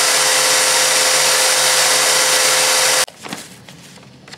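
Angle grinder fitted with a sanding disc running at full speed, a steady motor whine. About three seconds in it cuts off abruptly, leaving only faint, irregular scraping.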